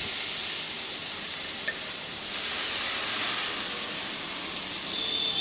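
Mashed banana stem and potato sizzling in hot oil in a kadai: a steady hiss that swells for about a second midway.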